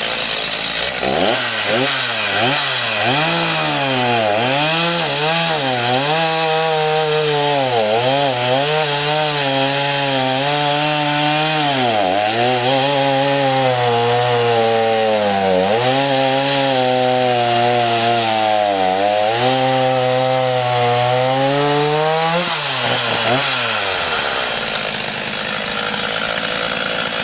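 Stihl MS 290 Farm Boss two-stroke chainsaw revving up and cutting through wood, its engine pitch sagging and recovering again and again as the chain bites, without bogging out, on a chain the owner says could have been sharper. It drops back to idle near the end.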